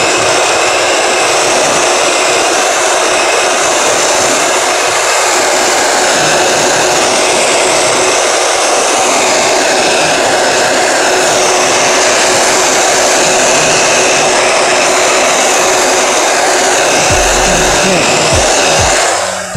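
Electric heat gun blowing hot air in a steady rush as it shrinks and seals cellophane wrap around a gift basket; it stops abruptly near the end.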